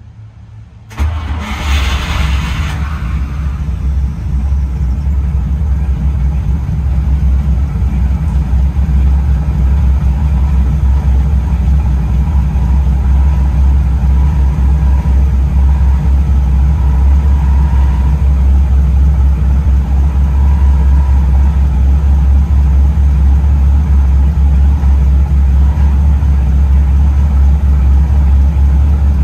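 The M5A1 Stuart tank's twin Cadillac V8 engines starting about a second in, with a short loud burst as they catch, then settling into a steady, deep idle that holds.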